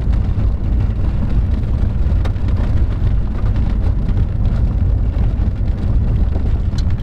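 Pickup truck driving on a rough dirt road, heard from inside the cab: a steady, loud low rumble of road and engine noise with a few sharp rattles and clicks.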